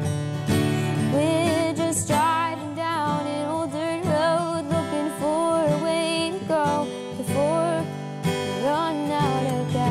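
A girl singing with vibrato, accompanying herself on a strummed acoustic guitar.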